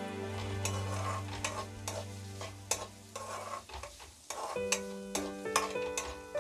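Spatula scraping and clattering against a non-stick kadai, stirring chopped onions that sizzle as they fry in oil, with many short sharp scrapes. Soft background music with sustained notes plays underneath.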